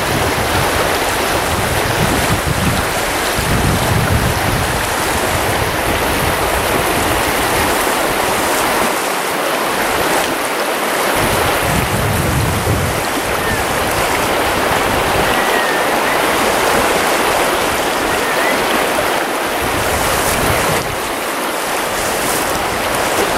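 Steady rushing of a shallow creek running over riffles, with wind buffeting the microphone in low rumbles that come and go.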